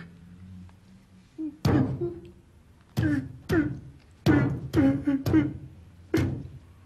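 A man's voice in a run of short, loud outbursts, about eight in a row at irregular intervals, during a heated confrontation.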